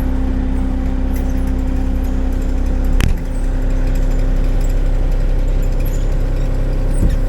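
Excavator engine running steadily, with a sharp knock about three seconds in and a lighter knock near the end.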